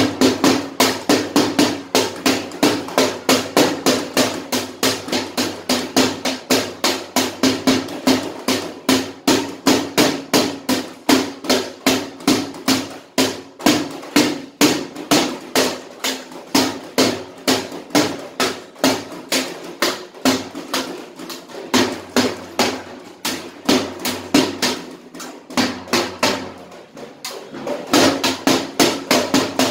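A steel-shelled drum beaten with a thin stick in a quick, steady run of strokes, about four a second, each ringing with a hollow tone. The strokes go softer for a couple of seconds about 25 seconds in, then come back at full strength.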